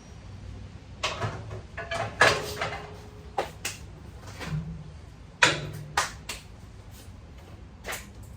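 A string of sharp knocks and clunks, the loudest about two seconds in and another about five and a half seconds in, over a low steady hum.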